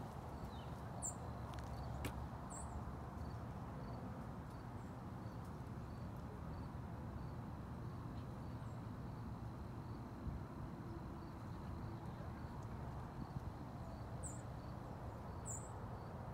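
Outdoor garden ambience: a steady low rumble, with short high chirps twice near the start and a few times near the end, over a faint, regular ticking.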